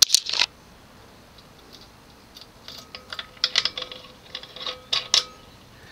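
Scattered light clicks and rattles, bunched together from about two and a half to five seconds in, as a ceiling fan's metal pull chains and glass fobs are handled.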